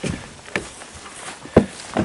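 Hand tools being handled on a plywood panel: a light knock about half a second in and a sharper knock about a second and a half in.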